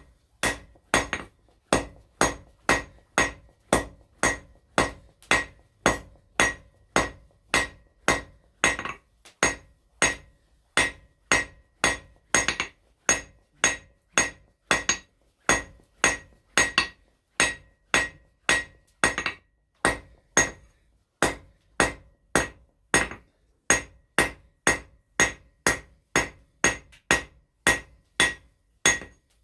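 Blacksmith's hammer striking a hot steel bar on an anvil at a steady pace of about two blows a second, each blow with a short bright ring, while drawing out a taper. There are a couple of brief pauses between runs of blows.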